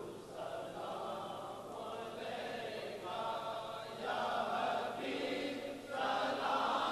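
A group of voices chanting the naat refrain unaccompanied, the chorus answering the lead reciter between verses; it grows louder about four seconds in and again near the end.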